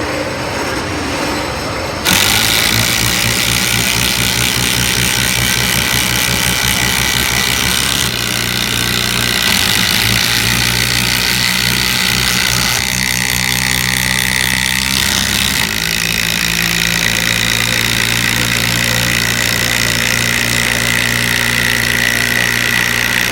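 Cordless 12-volt impact drivers, a Milwaukee M12 Fuel and a Makita brushless, hammering 5.5-inch LedgerLok structural screws into treated timber under heavy load. The rapid impacting starts about two seconds in, changes pitch partway through, and cuts off sharply near the end as the driving stops.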